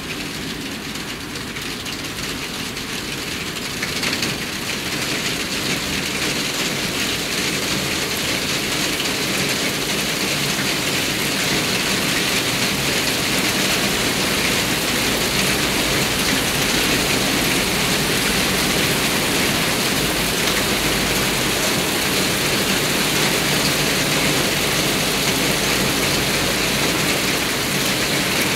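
Heavy rain pouring down onto pavement and parked cars, building over the first ten seconds or so into a steady, loud downpour.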